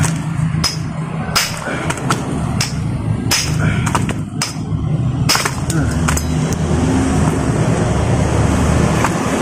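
Small sledgehammer striking the steel housing of a drive shaft's CV joint to knock it off the shaft. Sharp metal blows come about a second apart and thin out after about six seconds, over a steady low hum.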